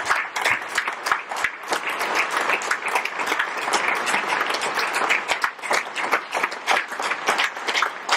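Audience applauding: many people clapping steadily, thinning near the end to fewer, more distinct claps.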